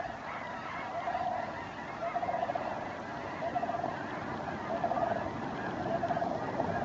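Continuous massed calling of a huge roosting flock of sandhill cranes and snow geese, many voices overlapping, with rattling calls in the same pitch recurring about once a second.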